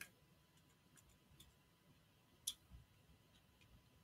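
Faint clicks of a small precision screwdriver on the case-back screws of a Casio F-91W as they are tightened down, with one sharper click about two and a half seconds in.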